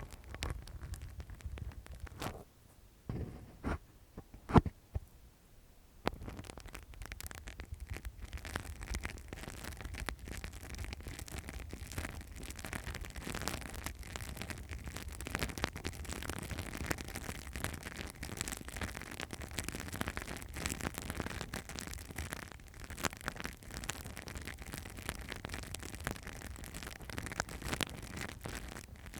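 Close-miked ASMR ear-cleaning sounds: a few separate taps and clicks, then, about six seconds in, continuous dense scratching and rustling against the microphone.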